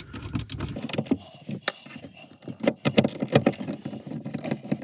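Hand screwdriver turning a mounting screw on an MPPT charge controller: irregular small clicks and light metallic knocks of the driver, screw and housing. The screw is not biting, with hardly any wall behind it to hold.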